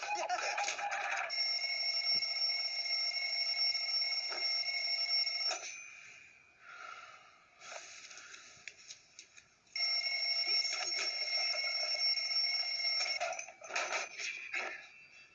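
Alarm clock ringing in two long steady rings of about four seconds and three and a half seconds, with a few seconds' pause between them.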